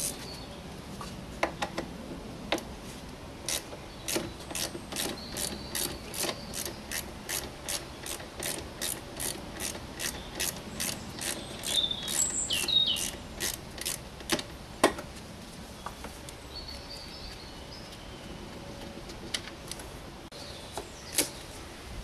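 Ratchet wrench with a 10 mm socket clicking steadily, about three clicks a second, as a bolt is undone. The clicking stops, and a single louder knock follows.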